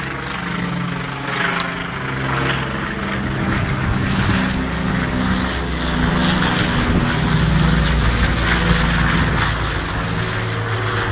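Propeller airplane flying overhead, its engine and propeller drone running steadily and swelling slightly as it passes.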